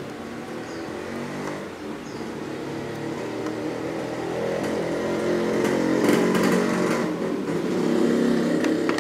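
An engine running, probably a passing motor vehicle, growing louder over about six seconds and staying loud to the end.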